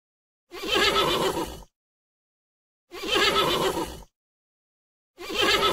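Horse whinnying: the same one-second neigh heard three times, with dead silence between, the third starting near the end.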